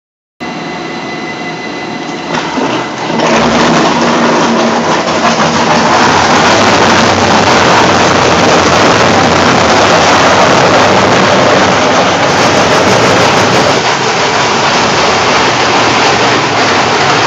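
Weima Spider 1000 industrial shredder: a steady machine hum starts just after the beginning, then about three seconds in gives way to loud, continuous crunching and grinding as a bathtub is shredded.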